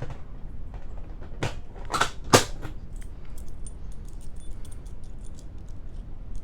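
Three sharp plastic-and-metal clacks within about a second as a fire alarm pull station is handled, the last the loudest, followed by light metallic ticking and clinking of keys.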